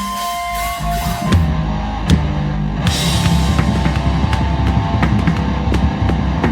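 Loud hardcore rock music: a quieter passage of held notes gives way to heavy bass and drums about a second in, and the full band with fast, driving drums and cymbals comes in about three seconds in.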